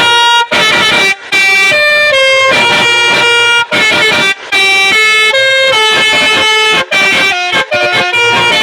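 Pianika (melodica) playing a quick tune in the style of a 'telolet' basuri bus horn: reedy held notes stepping from pitch to pitch, broken by short gaps between phrases.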